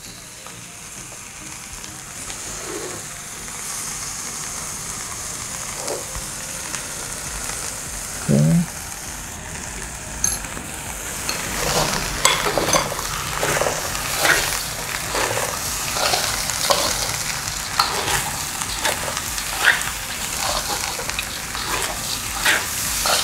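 Rice frying and sizzling in a pan with dark soy sauce just added, in a steady hiss that grows louder. From about halfway it is stirred, with repeated scraping and knocking against the pan. A brief low sound comes about eight seconds in.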